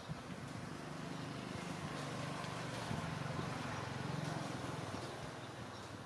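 A low engine hum that swells through the middle and fades toward the end.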